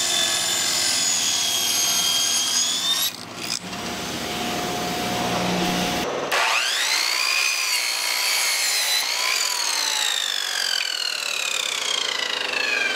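Power saws cutting plywood: a table saw running through the first few seconds, then a miter saw whining up to speed about six seconds in and cutting, its pitch falling slowly as the blade winds down.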